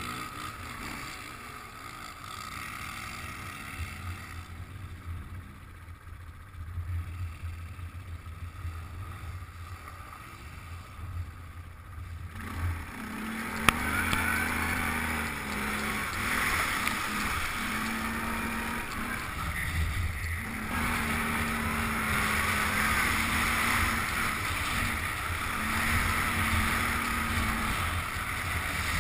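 Quad ATV engine running while riding over a rough dirt track, heard from a camera mounted on the quad. It becomes clearly louder about halfway through, with a single sharp knock soon after.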